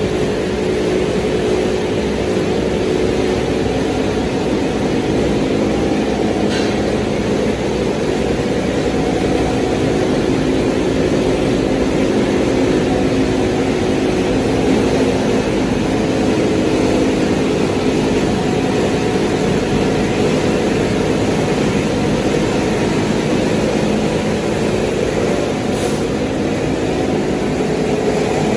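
QD-600SA copper wire granulator running steadily: a constant loud machine din with a steady hum in it, unchanging throughout.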